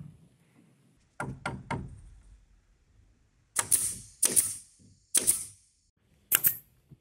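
Three quick knocks about a second in, then a pneumatic nail gun firing four times about a second apart, each shot a sharp crack followed by a short hiss of air, fixing bamboo poles to the frame.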